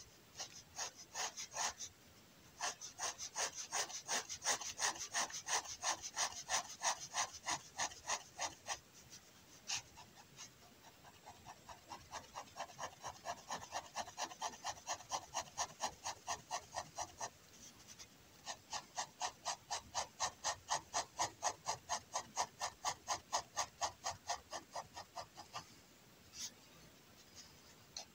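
Liner pen hatching on kraft paper: quick repeated scratchy pen strokes, about four a second, in runs of several seconds broken by short pauses.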